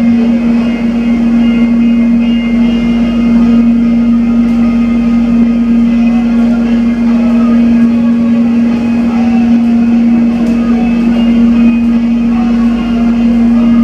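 Cabin sound of an airport rail link electric multiple-unit train under way: a loud, steady hum of one unchanging pitch over a running noise.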